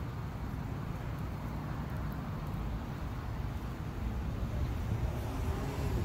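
Steady low rumble of road traffic, getting slightly louder near the end.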